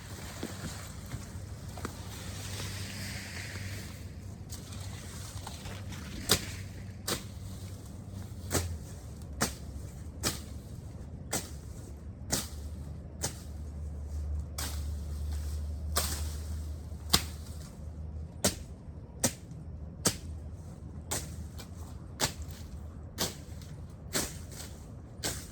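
Repeated chopping strokes of a hand cutting tool through vegetation while clearing ground, about one sharp stroke a second, beginning a few seconds in.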